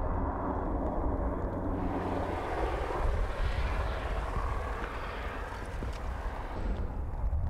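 Ambience beside an advancing lava flow: a steady low rumble throughout, with a brighter hissing crackle from about two to six and a half seconds in as the glowing lava front moves over dry grass.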